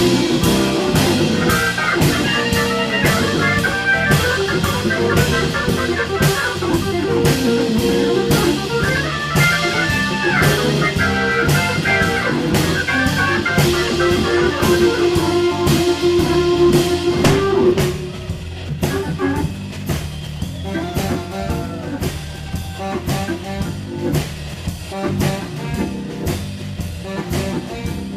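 Live blues band playing an organ-led shuffle, with Hammond organ, drum kit and guitar over a steady beat. About two-thirds of the way through the band drops to a noticeably quieter passage.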